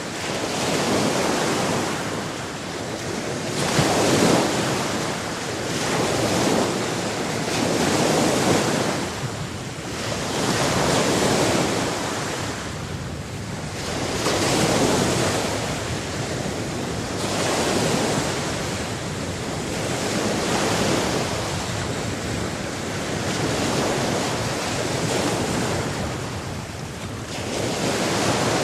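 Sea waves washing in and drawing back, a steady rushing that swells to a surge every three or four seconds.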